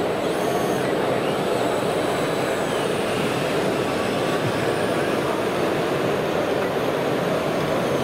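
A 1:8 scale radio-controlled Volvo wheel loader working, giving a steady engine-like running noise as it lifts and tips its bucket and then drives on.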